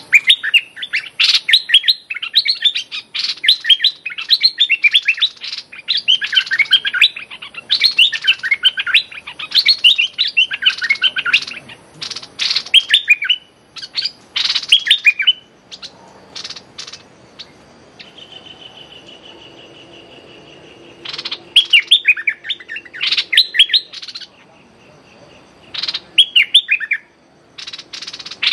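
Bulbul giving rapid, sharp chattering call notes in long bouts, with a lull of a few seconds about halfway through. The call is a challenge call aimed at a rival bird.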